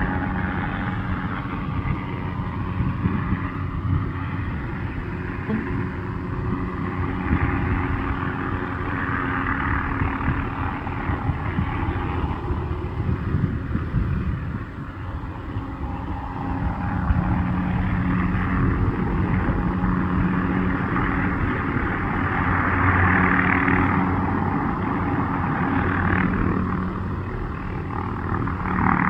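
MD 530F light helicopter running, its turboshaft engine and rotors giving a steady drone with low tones. The noise swells and fades every few seconds.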